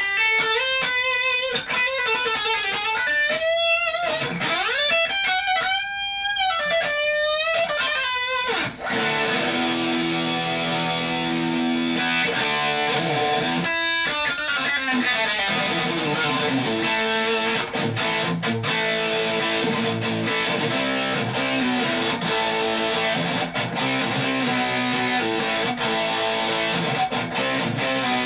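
Electric guitar played through a Tech 21 XXL distortion pedal into a small bench amp. For about the first eight seconds the sound wavers and sweeps up and down like a phaser, which the player takes for the pedal oscillating. After that, distorted notes and chords ring steadily.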